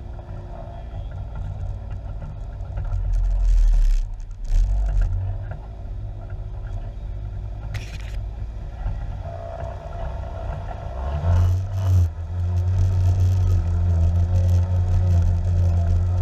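Side-by-side UTV engine running at low speed through muddy water, broken by a few short bursts of splashing and scraping against the vehicle. Near the end the engine picks up and runs louder and steadier.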